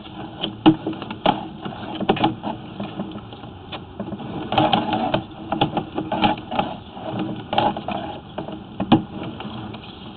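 Sewer inspection camera being pulled back through the line: irregular clicks and knocks from the push cable and reel over a steady low hum.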